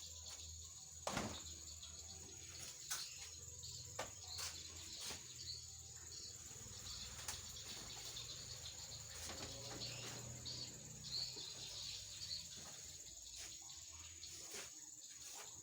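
Steady high-pitched insect drone, like a cricket, running throughout, with scattered light clicks and knocks, the sharpest about a second in.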